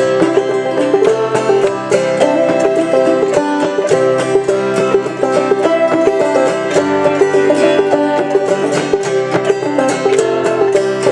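Clawhammer banjo and autoharp playing an instrumental passage of an old-time gospel tune: a steady run of plucked banjo notes over ringing strummed chords.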